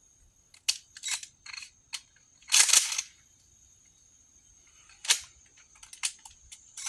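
Shotgun shells being loaded into the magazine tube of a Mossberg Maverick 88 20-gauge pump shotgun: a series of short metallic clicks, with one louder, longer clack about two and a half seconds in.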